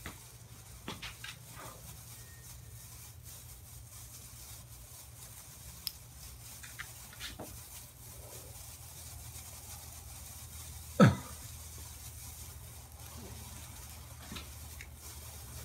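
Snake firework burning with faint hissing and scattered small crackles, and one sharp pop about eleven seconds in.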